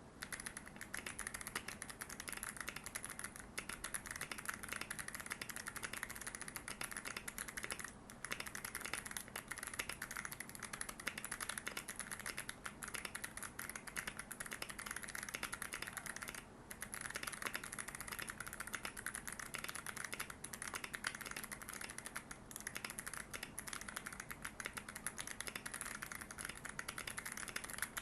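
Fast typing on a mechanical keyboard with Kailh Box Jade clicky switches and Akko ASA keycaps: a dense, continuous patter of sharp key clicks, broken by short pauses about eight and sixteen seconds in.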